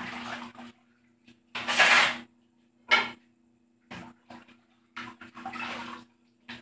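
Dishes being washed by hand in a metal basin: short separate bursts of water splashing and crockery clattering, with a ringing clink about three seconds in. A faint steady low hum runs underneath.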